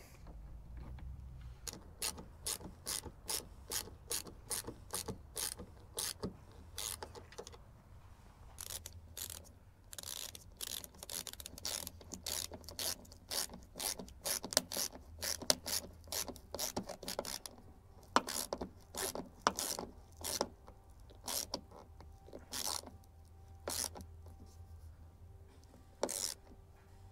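Ratcheting hand screwdriver driving screws into a plywood deck patch: a run of ratchet clicks, about two a second, in spells with short pauses.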